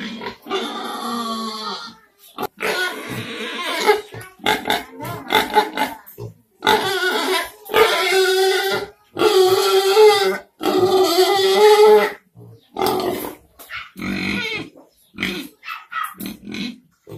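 Domestic pigs calling over and over: a run of short pitched calls broken by brief pauses, with three long calls of well over a second each in the middle.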